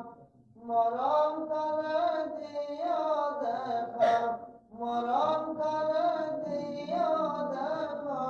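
Durood (Arabic blessings on the Prophet) chanted in a slow, drawn-out melody, with the lines sustained and gliding in pitch. There are short breaths about half a second in and just after four seconds.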